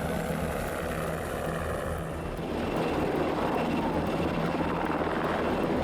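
Helicopter in flight: a steady drone of rotor and engine noise, with a pulsing low throb.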